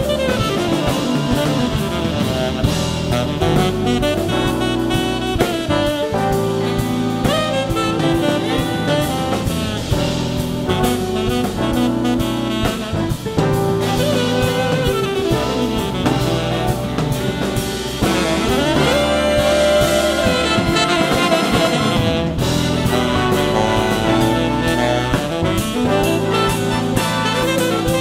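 Jazz big band playing: saxophones, trumpets and trombones in full ensemble over drum kit, bass and guitar.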